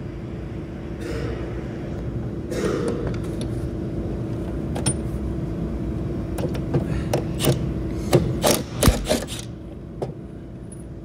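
Metal tools and fittings clinking and knocking as parts are handled on a truck's fuel pump, with a run of sharp clicks about six to nine seconds in. A steady low hum runs underneath.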